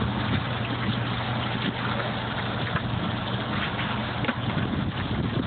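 Steady motor hum of the FLUPSY's water pump over rushing, churning water, with a few light knocks.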